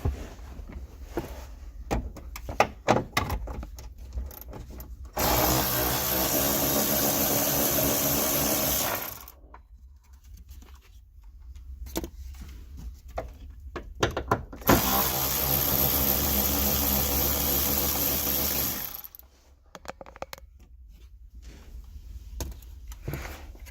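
A power tool driving a 13 mm socket on an extension runs twice for about four seconds each, spinning off the nuts. Clicks and knocks from the socket and handling come before, between and after the two runs.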